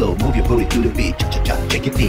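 Background music: a vocal track over a steady drum beat and bass.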